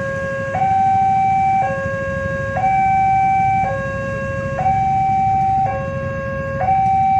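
Railway level-crossing warning alarm sounding a two-tone hi-lo signal that switches between a higher and a lower tone about once a second, warning that a train is approaching. A low rumble of traffic runs underneath.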